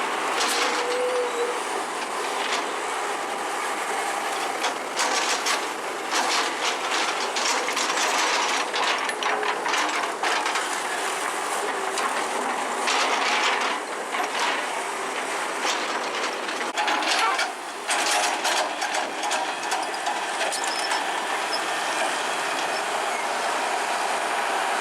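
Excavator at work: steady mechanical noise with rapid metallic clanking and clattering throughout.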